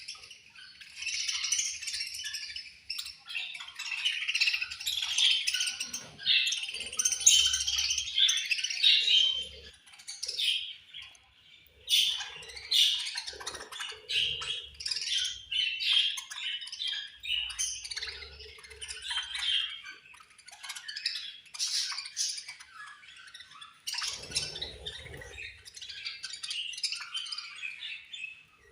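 Several budgerigars chirping and chattering busily, a dense run of short, rapid high calls, with a few sharp clicks and soft knocks among them.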